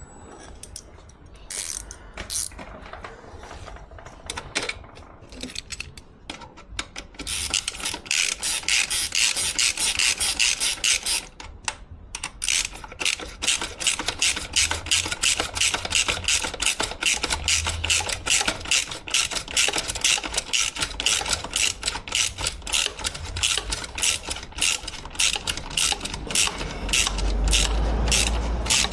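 Ratchet wrench with a 13 mm socket clicking as a motorcycle exhaust bolt is run in: a few scattered clicks at first, then a long run of rapid clicking with one short pause, leaving the bolt snug rather than fully tight.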